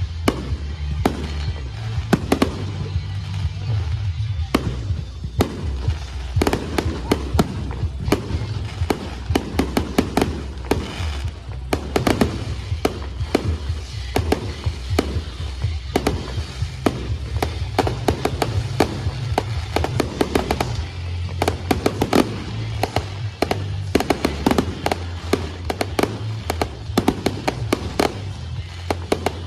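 Fireworks finale: a rapid, dense barrage of bangs and crackles from shells bursting, going on throughout, over music playing underneath.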